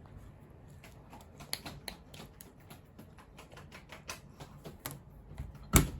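A toddler eating a rice ball, with a run of quick, irregular clicks and smacks and a louder burst of noise just before the end.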